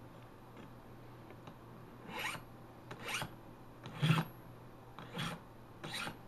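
Dull scissor blades being drawn through a small wheeled sharpener: five short rasping strokes about a second apart, the middle one the loudest.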